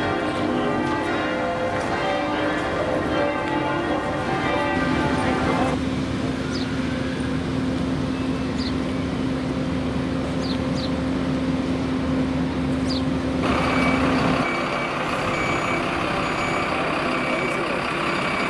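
Bells ring at first. Then a fire truck's diesel engine idles with a steady hum. Near the end a vehicle's reversing alarm beeps repeatedly.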